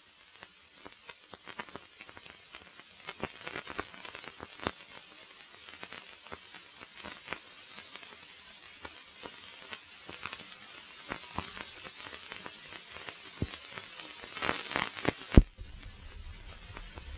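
Crackling and scattered pops over a faint hiss, the surface noise of an old analogue film soundtrack with no program on it. Near the end comes a burst of louder pops and a single sharp crack, after which a low hum sets in.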